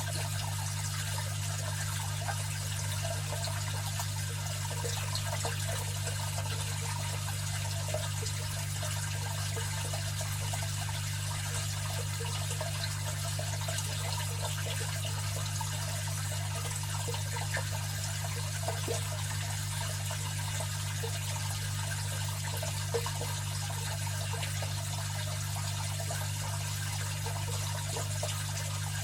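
Aquarium filter running: water trickling and bubbling steadily over a constant low hum from the pump motor.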